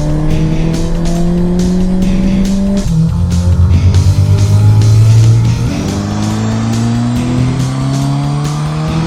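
A car engine accelerating hard, its pitch climbing steadily with sudden jumps about three and six seconds in, as at gear changes. Music with a steady beat plays along.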